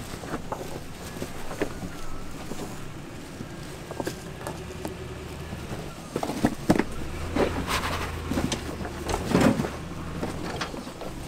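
Lexus LX470's 4.7-litre V8 running slowly as the truck crawls over rocks, with tyres crunching and knocking on stones. The engine hum and the knocks grow louder about six seconds in.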